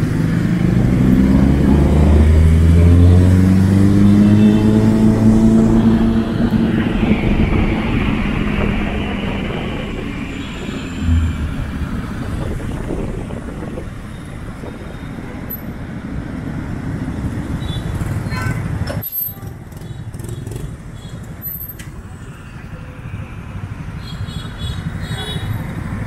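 Motor scooter engine rising in pitch as it accelerates over the first six seconds or so, then the steady noise of dense scooter traffic all around.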